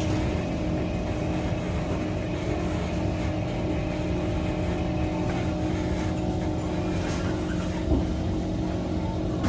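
Cabin noise of an SMRT C151 MRT train: a steady hum carrying several constant tones over a low rumble.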